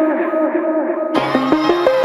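Background music: a melody of gliding notes, joined about a second in by a bass line and a steady beat.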